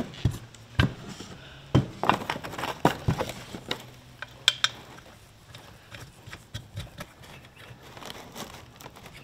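Knocks and clicks of a black metal soft-top C-pillar bracket being handled against its cardboard packaging, louder in the first few seconds. After that comes a run of small ticks as a plastic knob is threaded onto the bracket by hand.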